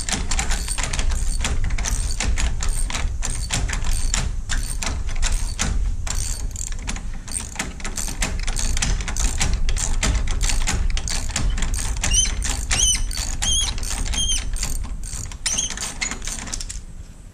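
Hand ratchet clicking rapidly as it is swung back and forth to slowly loosen a stubborn, WD-40-soaked shifter peg bolt on a Harley-Davidson Sportster. A few short high squeaks come about twelve to fifteen seconds in.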